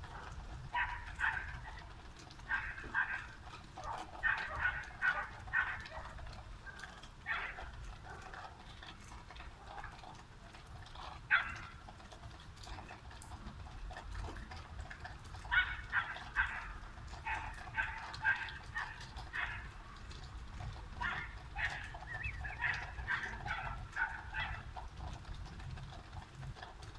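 A dog barking repeatedly in short runs of several barks, with pauses between runs, over a steady low background rumble.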